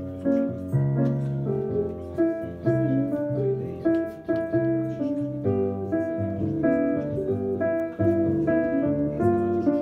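Piano playing chords in a steady rhythm, accompanying a woman singing into a microphone.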